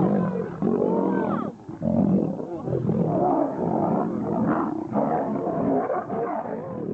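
Lion roaring: a run of deep, rough roars and grunts one after another, growing somewhat quieter near the end.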